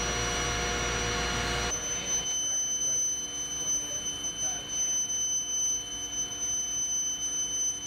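Steady high-pitched electrical whine with a faint hiss; a low hum underneath stops abruptly about two seconds in.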